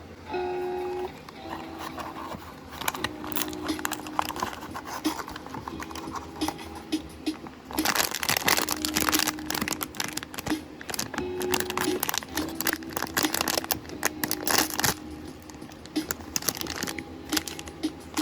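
Packaging crinkling and tearing as a blind box is unwrapped, with dense crackling in two busy stretches, about halfway through and again near the end, over soft background music.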